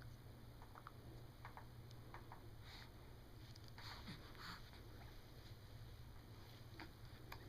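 Near silence: room tone with a steady low hum and a few faint scattered clicks and rustles.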